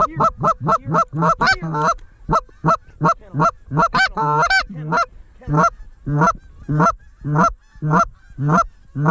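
Hand-blown goose call sounding a run of fast, evenly spaced clucks that slows after about two seconds into longer, spaced single honks, to turn back a flock of Canada geese.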